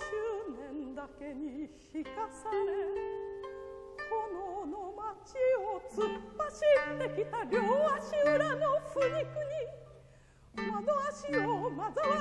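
A woman singing in a classical, operatic style with strong vibrato, accompanied by plucked strings led by koto. Low plucked bass notes join about halfway. The music drops away briefly shortly before the end, then the voice comes back in.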